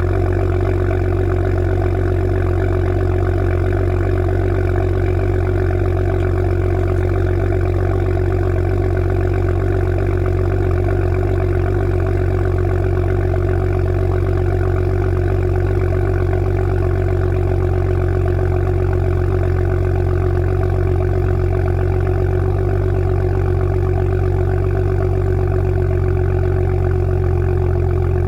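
BMW 435i's 3.0-litre turbocharged inline-six (N55) idling steadily through its stock exhaust, warming up after a cold winter start.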